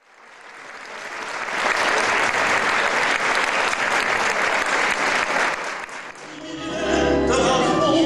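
Audience applause fades in, holds steady and dies away about six seconds in; then a live tango quintet starts to play.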